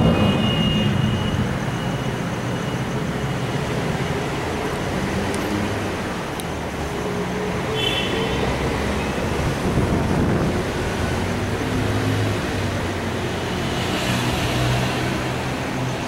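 Steady road traffic noise, an even hum with a brief high tone about eight seconds in.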